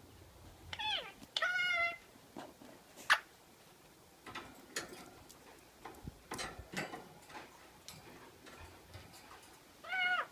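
Indian ringneck parakeet mimicking a cat's meow: a short falling meow about a second in, a longer wavering one right after it, and another falling meow near the end. Scattered sharp clicks and taps fall in between.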